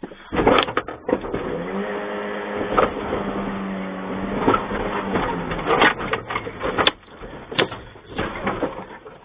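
An elephant ramming a pickup truck's bonnet with its head and tusks: repeated bangs and crunching of sheet metal, heard from inside the cab. A steady low tone is held for a few seconds in the middle.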